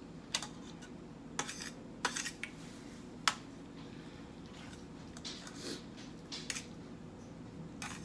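Sharp clinks and taps of tableware against a metal serving platter during eating, several in the first few seconds and softer ones later, over a steady low hum.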